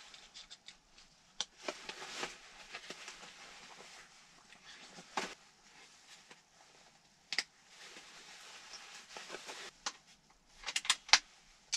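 Person shifting about and handling gear inside a pickup's cab: soft rustles with scattered clicks and knocks, ending with a quick run of sharp clicks about eleven seconds in.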